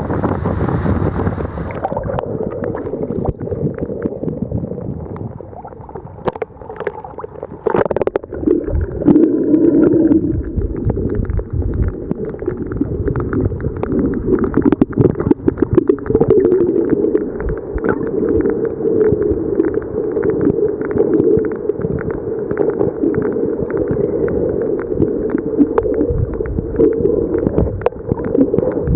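Sperm whales clicking underwater: dense trains of rapid sharp clicks over a steady watery rush, louder in places.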